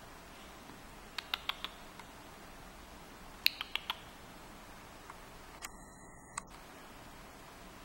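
Faint room hiss with scattered sharp clicks: a quick run of four about a second in, another cluster of four or five at about three and a half seconds, and a few fainter ones later.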